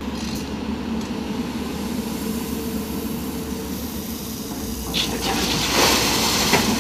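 Hydraulic excavator's diesel engine running steadily as it swings a loaded bucket. About five seconds in, a bucketful of crushed stone pours into the steel bed of a tipper truck in a loud rushing spill.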